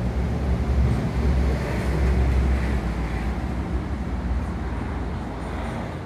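Steady low rumble of road traffic, swelling slightly a couple of seconds in and easing off near the end.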